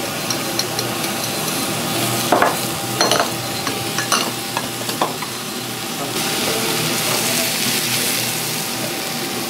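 Food sizzling as it fries in a pan or on a griddle, with a few sharp clinks and knocks of utensils. The sizzle grows louder about six seconds in.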